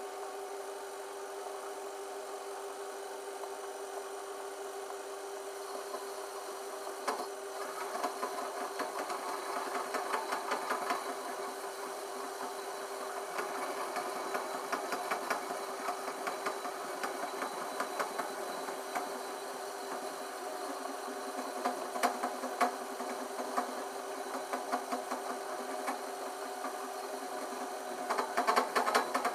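Metal lathe running with a steady hum as it spins a copper pipe. From several seconds in, a flat file is held against the turning pipe, adding a dense, rapid rasping scrape that gets louder near the end.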